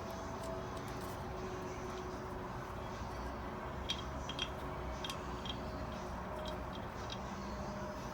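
A few faint, light clicks and taps of small metal parts being handled while a PTO and its gaskets are put together, over a steady low hum.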